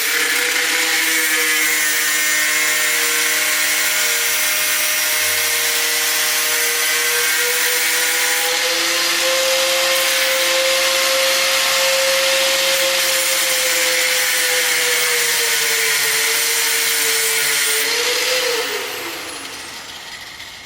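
Abrasive cut-off tool running under load, cutting through a motorcycle drive chain: a steady high motor whine over a harsh grinding hiss. Near the end it is released and the whine falls in pitch as the disc spins down.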